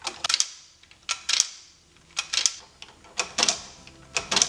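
Hard plastic clicks of Lego pieces being handled, coming in pairs about once a second.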